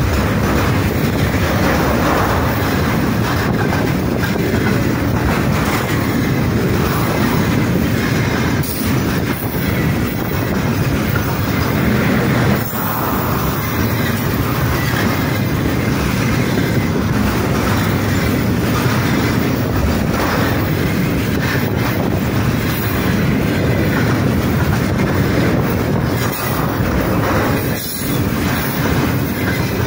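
Container freight wagons rolling past close by: a loud, steady rumble of steel wheels on rails with knocks over the rail joints, falling off near the end as the last wagons go by.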